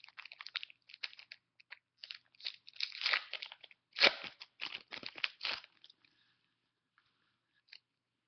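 Foil Pokémon card booster pack being crinkled and torn open, a run of crackling, tearing bursts that stops about six seconds in.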